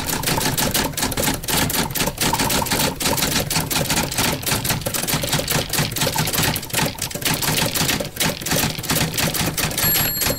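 Typewriter keys clacking rapidly as a line of text is typed out, with a short ringing ding near the end like the carriage bell.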